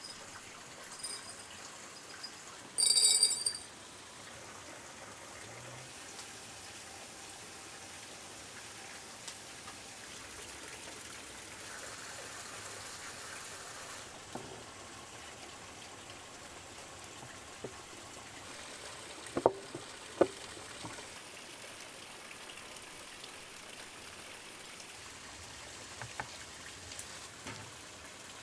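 Glass jars being packed with fish pieces by hand over a steady stream-like water background. A sharp, ringing glass clink about three seconds in is the loudest sound, and two sharp knocks follow close together near twenty seconds.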